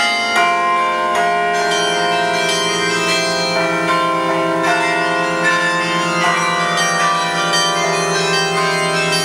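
The 62-bell carillon of Longwood Gardens' Chime Tower ringing. Bells are struck several times a second, and each note rings on over the next.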